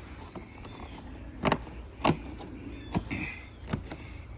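A loose siding panel being pushed and worked back into place by hand, giving about four sharp clicks and knocks over a steady low hum.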